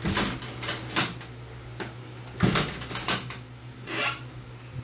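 Metal hood latches on a mini Jeep being flipped open and the hood handled: a series of sharp metallic clicks and clanks.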